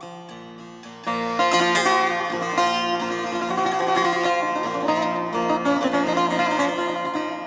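Persian setar, a long-necked fretted lute, played solo. A soft ringing note gives way about a second in to a loud, fast run of plucked notes, which grows softer near the end.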